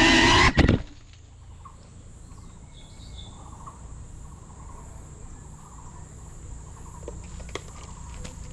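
Music cuts off less than a second in, leaving outdoor ambience: a steady low rumble with faint insect chirping and a thin, high insect hum. A few light clicks come near the end.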